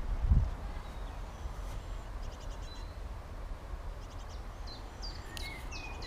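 Small birds chirping and giving quick trills over a steady outdoor background hiss, with a brief low rumble just after the start; the calls come more often near the end.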